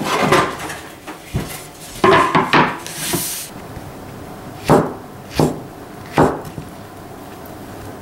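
Santoku kitchen knife slicing mushrooms on a wooden cutting board: three sharp knocks of the blade on the board, a little under a second apart, in the second half, after a stretch of clattering handling sounds.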